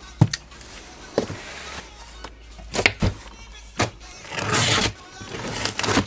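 A knife slitting the packing tape on a large cardboard box: a few sharp knocks and taps as the box and knife are handled, then two longer stretches of cutting and tearing tape near the end.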